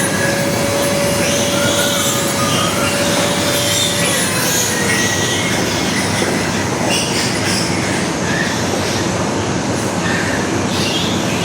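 Piglets squealing loudly and without a break, the harsh screaming of piglets being held to have their teeth clipped.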